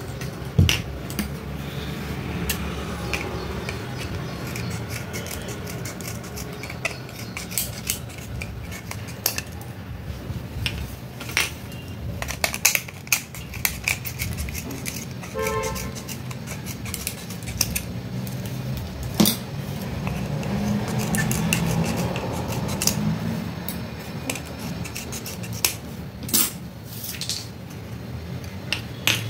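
Scissors snipping and trimming the rims of cut-off amber plastic medicine-bottle tops: many sharp, irregular clicks and snips over a steady low background noise.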